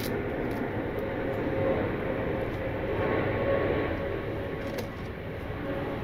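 Steady machine hum with a faint held tone, and a few faint clicks of a zip tie being worked around the timing chain and cam gear.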